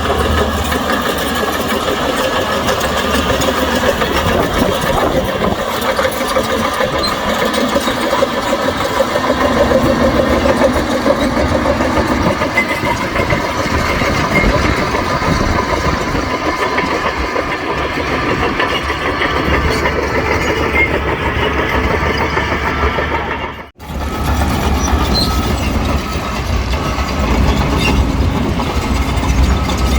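Heavy diesel engine of a bulldozer running steadily under load with a strong low hum. It cuts out for a split second about three-quarters of the way through, then carries on.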